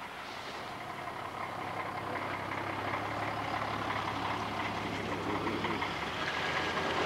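Coach bus diesel engine running as the bus pulls away, a steady low drone growing slightly louder.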